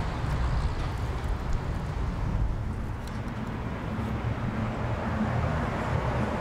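Steady road traffic noise, a low rumble from cars passing on a nearby road.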